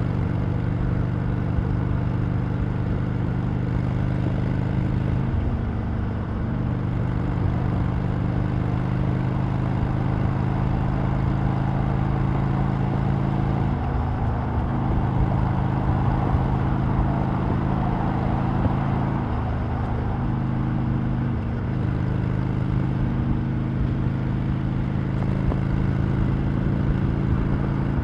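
Harley-Davidson Sportster Iron 883's air-cooled V-twin running through its stock exhaust, a steady engine note whose pitch steps slightly up and down several times as the engine speed changes.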